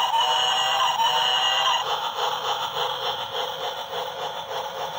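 Battery-powered transparent gear toy train playing a beeping electronic tune, which stops about two seconds in. A rhythmic clatter of its motor and spinning gears follows, about four beats a second.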